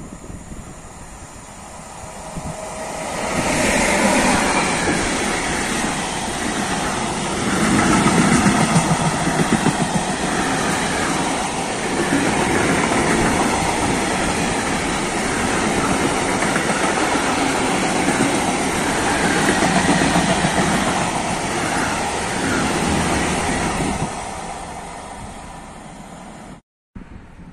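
Freight train passing close by: the rumble swells as the locomotive arrives about three seconds in, then a long string of tank and covered wagons goes by with steady wheel rumble and rail clatter, fading as the last wagons pull away about four seconds before the end. The sound cuts out sharply just before the end.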